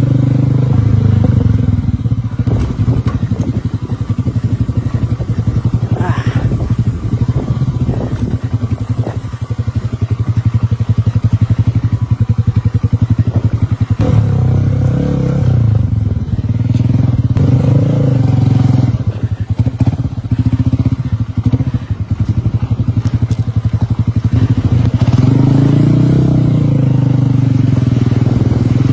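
A classic scrambler motorcycle's engine runs steadily under way. Its pitch rises and falls as the rider changes speed, about halfway through and again near the end.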